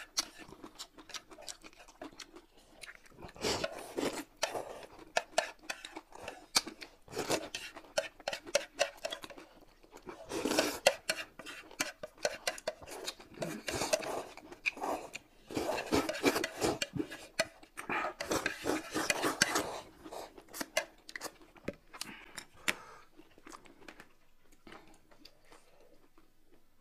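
Two people slurping and chewing noodles, with chopsticks clicking against the plate and bowl. The slurps come in noisy runs of a second or two, and it goes quieter in the last few seconds.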